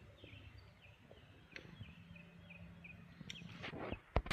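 Faint bird chirping outdoors: a steady series of short, repeated calls, with a few light clicks and one sharp click near the end.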